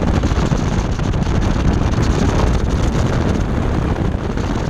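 Heavy wind buffeting on the microphone over a BMW F10 535i's turbocharged straight-six engine and tyres as the car drives an autocross course, a steady loud rushing without clear engine tones.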